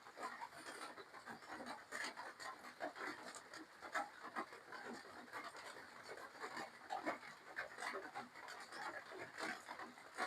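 Close-miked chewing and mouth noises of a person eating spicy seafood papaya salad: irregular small wet clicks, smacks and crunches, with breathing.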